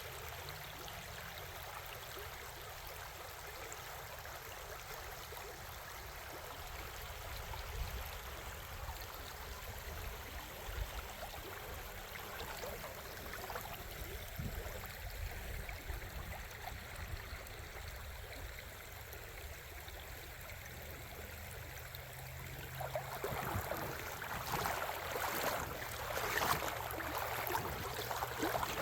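Creek water flowing steadily, an even rushing hiss. Louder irregular crunching and rustling comes in for the last few seconds.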